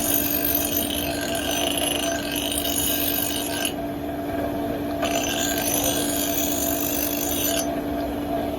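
Metalworking in a blacksmith's shop: two long spells of rasping, each about three seconds, over a steady machine hum.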